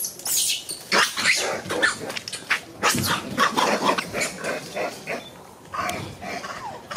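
Macaques crying out in a dense run of short, loud, shrill screams and squeals that thin out near the end. These are the distress cries of a young monkey being attacked and chased by a big male.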